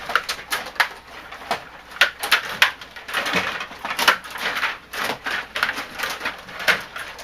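Rapid, irregular clicks and taps, several a second, with no voices.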